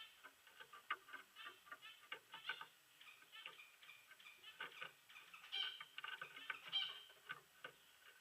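Aviary finches (zebra finches and Gouldian finches) chirping and calling: a faint, irregular flurry of short high calls that grows busier after about five seconds.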